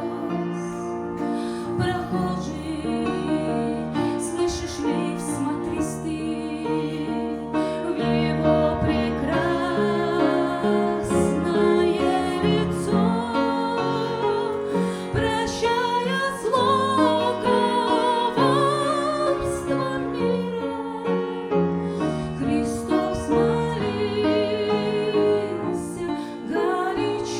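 A woman singing a slow, tender song with vibrato over sustained instrumental accompaniment.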